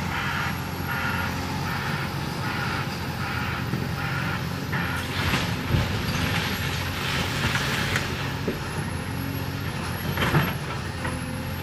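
Caterpillar excavator's diesel engine running steadily as its bucket pounds the wrecked house down into the basement, with two sharp crashes of debris, about six seconds in and again near the end.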